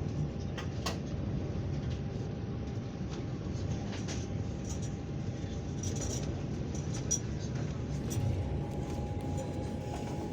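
Long-distance passenger train carriage rolling along the track, heard from inside: a steady low rumble with scattered clicks and a faint steady whine.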